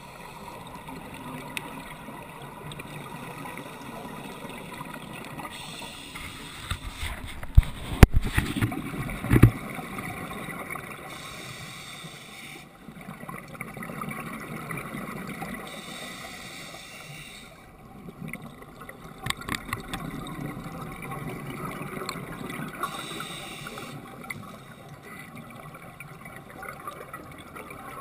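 Scuba regulator breathing heard underwater: hissing and bubbling that rise and fall in cycles of about five seconds. A few loud sharp knocks come about eight seconds in.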